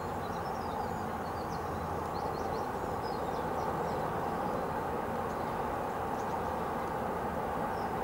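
Steady outdoor background rumble by a lake, with faint small-bird chirps and twitters high above it, strongest in the first half.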